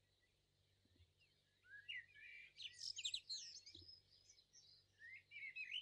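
Faint bird chirping: quick, high chirps with rising and falling pitch in two short clusters, about two seconds in and again near the end, over near silence.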